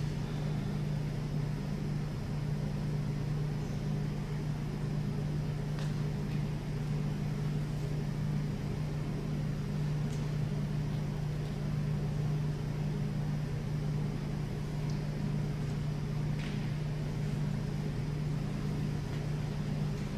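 Steady low electrical or ventilation hum filling a large gymnasium, with a few faint knocks and shuffles.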